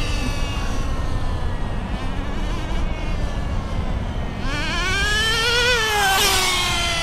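Traxxas Nitro Rustler's small TRX 2.5 nitro engine buzzing at high revs as the RC truck is driven during break-in: its pitch falls away at first, then rises sharply about two-thirds of the way in and drops again near the end.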